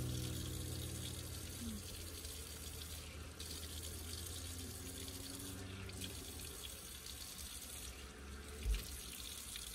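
Bathroom sink tap running steadily, its water splashing in the basin and over a puppy being rinsed by hand. A short low thump near the end.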